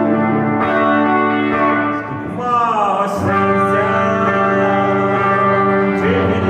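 Live song accompaniment in an instrumental passage, led by guitar, with a sliding fall in pitch about two and a half seconds in.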